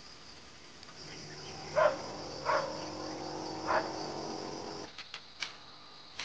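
A dog barking three times, about a second apart, over a steady high chorus of insects. A low steady hum runs under the barks and stops shortly before the end.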